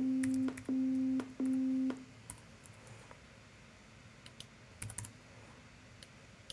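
Three short computer-generated beep tones, each about half a second long with brief gaps between them, all on the same pitch near middle C, as a Snap! 'play note 60' block plays. A few soft keyboard and mouse clicks follow.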